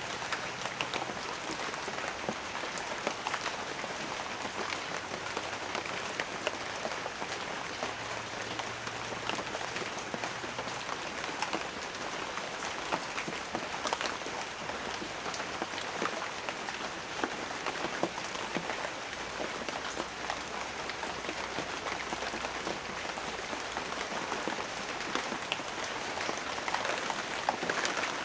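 Steady rain falling, with a dense patter of individual drops striking a surface.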